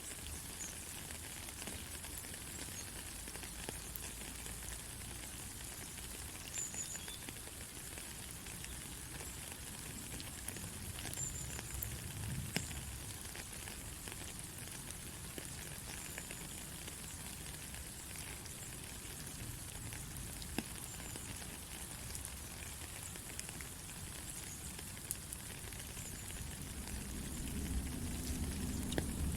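Steady rain: an even hiss dotted with many small, sharp drop ticks. A low rumble swells in near the end.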